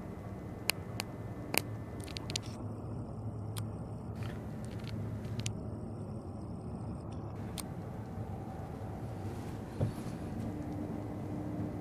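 Steady low rumble inside a moving cable car gondola travelling along its cable, with a few sharp clicks in the first two seconds and a single knock near the end.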